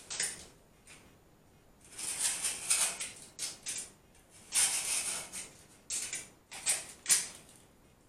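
A knife drawn along a metal ruler through a thick 3D gel tile sticker sheet, in several short scraping strokes that come in clusters, with pauses between. The repeated passes are needed to get the blade through the thick sheet.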